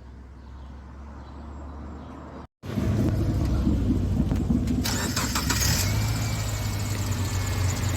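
Subaru Forester's flat-four engine running with a steady low hum. A brief dropout about two and a half seconds in, then it comes back much louder, and a loud hiss joins about five seconds in.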